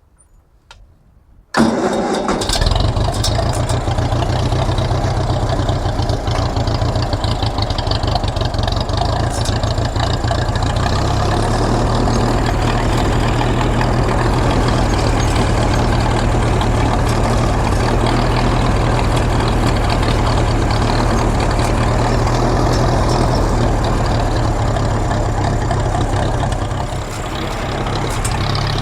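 Ferguson tractor engine cutting in suddenly about a second and a half in, then running steadily while towing a trailer, with a brief dip in level near the end.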